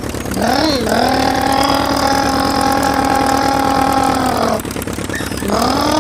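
A voice drawing out one word into a long held note for about four seconds, with a brief rise and fall in pitch at its start. After a short pause a second drawn-out call begins, rising and then falling in pitch.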